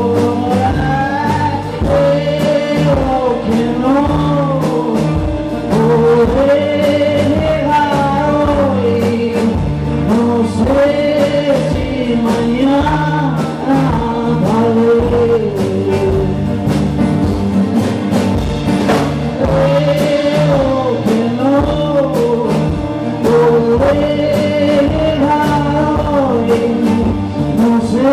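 Live rock band playing: a male lead vocal sung over strummed acoustic guitar, electric guitars and a steady drum beat.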